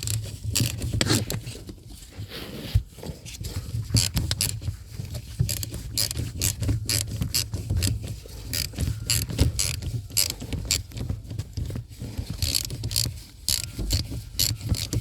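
Ratchet wrench on an extension clicking in quick repeated strokes as it tightens a 13 mm steering rack mounting bolt.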